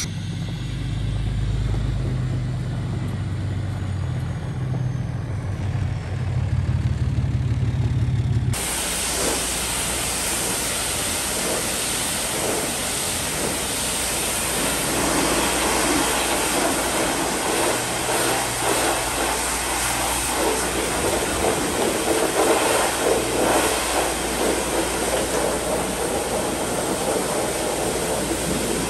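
An engine idling at first; about eight seconds in the sound cuts sharply to a pressure washer, its wand sending a steady hissing jet of water over a car's stripped chassis and windshield frame.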